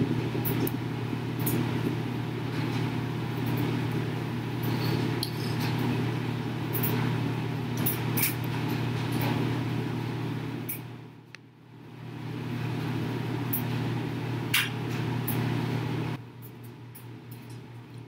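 A steady low machine-like hum with scattered light clicks. It dips briefly about two-thirds of the way through and cuts off suddenly near the end, leaving a quieter background.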